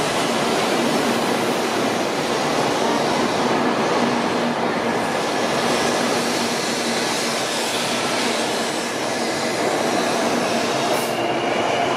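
Doctor Yellow T5, a JR Central 923-series Shinkansen inspection train, moving past along the platform at low speed: a steady rolling rumble and hiss with a low hum, and a faint rising whine near the end.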